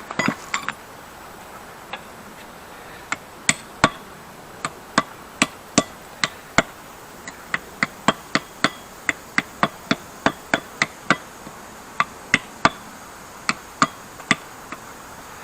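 Light metal-on-metal taps on a rusty forged post vise, a long irregular series of sharp ringing strikes at about two a second, while the vise screw's thread is worked to start in its nut.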